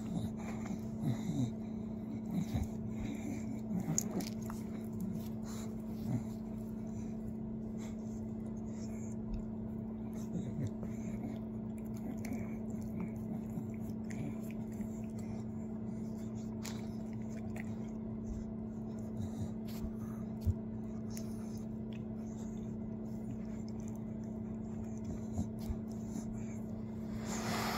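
A steady low hum with faint scattered clicks and small squeaky, rubbing sounds now and then, most of them in the first few seconds.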